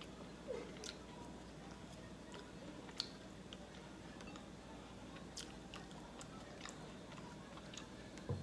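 Quiet close-up chewing and biting of smoked turkey leg meat, with scattered small mouth clicks and a sharper one about three seconds in.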